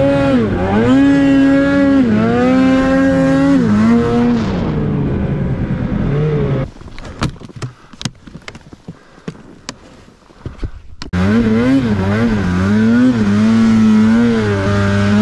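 Polaris two-stroke snowmobile engine revving, its pitch rising and falling again and again under the throttle. About six and a half seconds in it drops away to a quieter stretch of scattered sharp clicks and knocks, and about eleven seconds in the engine is back, loud and revving up and down again.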